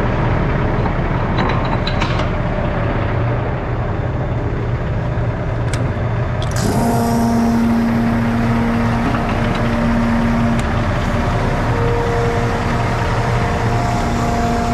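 Tandem grain truck's engine running steadily with a low rumble. About six and a half seconds in, a hiss and a steady whining tone join it.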